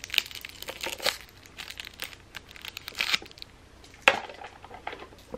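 Thin plastic straw wrapper on a drink-yogurt cup crinkling and tearing as it is pulled open, in irregular crackles, with a sharper crackle about four seconds in.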